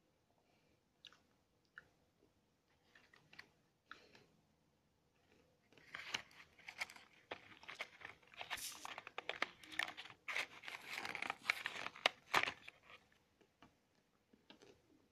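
Someone crunching and chewing a Nestlé Smarties candy-coated chocolate close to the microphone: a few scattered clicks at first, then dense crunching from about six seconds in that stops about twelve seconds in.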